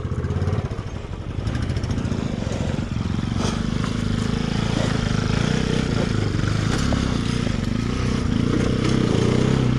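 Motorcycle engine running steadily as the bike climbs a rocky off-road trail; the revs dip briefly about a second in, then hold.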